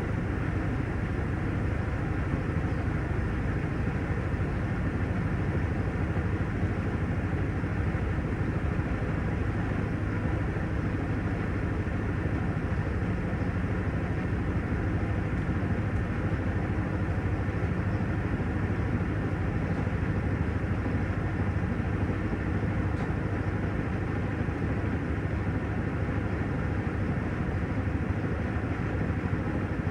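Panasonic washing machine running through its wash cycle: a steady rumble with a constant low hum.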